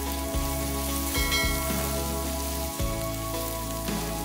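Ground beef and diced onion sizzling in a nonstick frying pan while a silicone spatula stirs them, with a few light clicks. Background music with held notes plays alongside.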